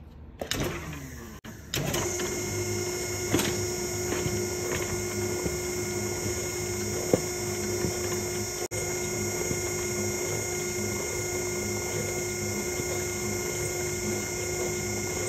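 Wire spooling machine starting up about two seconds in, then running steadily with a constant whine as it winds black nylon-coated wire onto a wooden reel.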